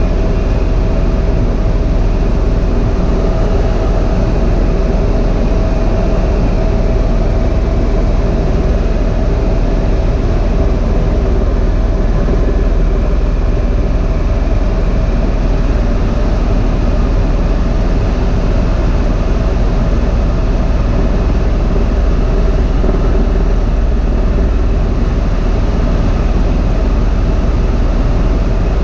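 Tour helicopter in level flight, heard from inside the cabin: the rotor and turbine engine give a loud, steady low drone with a constant whine over it, unchanging throughout.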